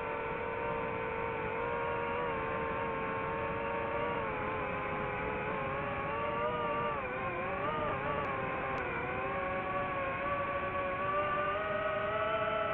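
A drone's electric motors and propellers whining in flight, the pitch wavering up and down with the throttle and climbing somewhat in the second half.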